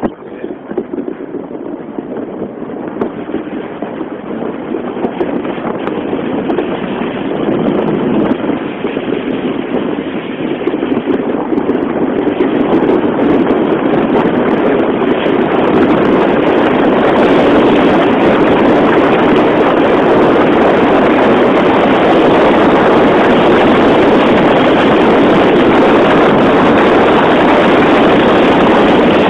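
Luge sled sliding down an ice track, its runners on the ice and the wind rushing over the helmet-mounted microphone. The rushing grows steadily louder over the first fifteen seconds or so as the sled gathers speed, then holds steady and loud.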